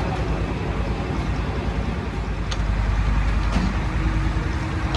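Steady low rumble of a motor vehicle engine running, with a couple of light clicks.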